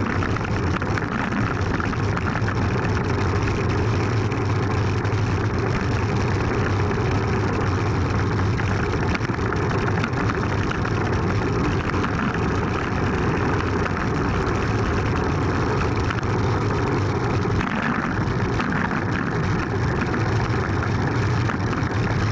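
Steady rush of wind on a bike-mounted action camera's microphone during a fast downhill bicycle descent, with low rumble from the tyres and road vibration; the rumble eases briefly about two-thirds through.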